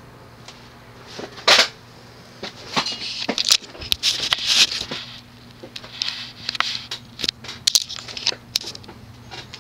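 Quorum Electra ceiling fan's spinner motor running on low with a steady hum. Over it come many irregular sharp clicks and crackling, rustling noises, which are the loudest sound.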